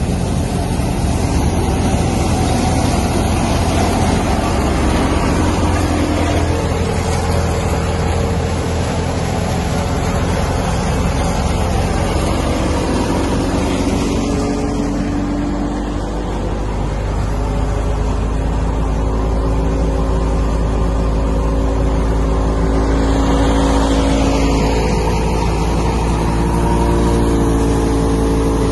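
Thresher driven by a Massey Ferguson 385 tractor running under load as straw is fed in: a steady, loud mechanical din of the tractor's diesel engine and the thresher's drum and fan, with some wavering tones over a low rumble.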